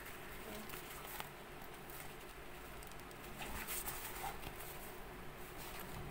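Soft rustling and scraping of a fabric triangle cycling frame bag being handled, with a few brief scuffs.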